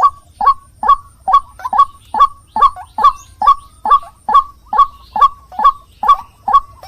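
White-breasted waterhen (ruak-ruak) calling: a steady run of short, falling notes, a little over two a second.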